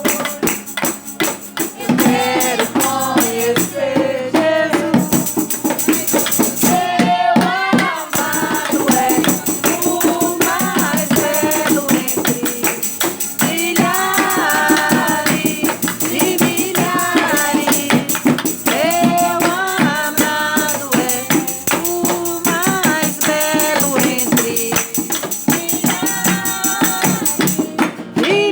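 Voices singing a Christian praise song (louvor) over a steady shaken tambourine rhythm.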